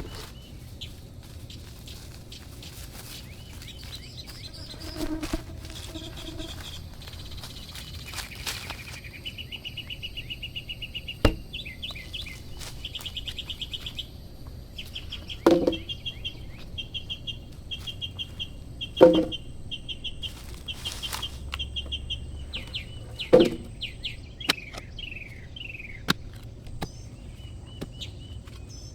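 Small birds chirping in fast, repeated trills, with four sharp knocks a few seconds apart standing out above them.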